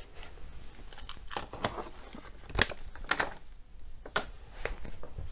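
Handling noise: plastic packaging crinkling, with a string of sharp clicks and knocks, the loudest about two and a half seconds in.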